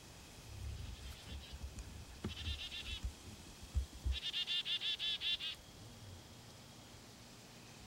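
Two rapid trills of quickly repeated high notes from a small woodland animal. A short one comes about two seconds in and a longer one about four seconds in, over faint low rumbling and bumps.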